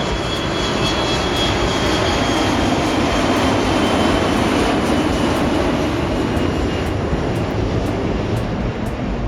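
Jet airliner engines running loud and steady, a dense rush of noise with a thin high whine that fades out about two-thirds of the way through.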